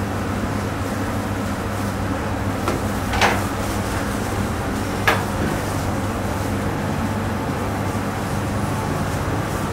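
Steady background noise with a low hum, broken by a few brief knocks: two close together about three seconds in and one more about five seconds in.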